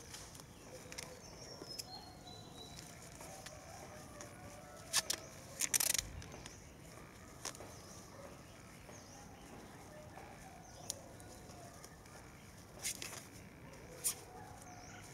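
Clear plastic grafting film crinkling and rustling in the hands as it is wound and tied: a few short crackles, the loudest about five to six seconds in, over a faint background.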